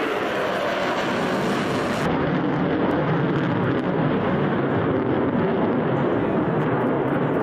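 Jet noise from an F-35B Lightning II's single F135 turbofan engine as the jet makes a fast pass: a loud, steady rush of engine sound.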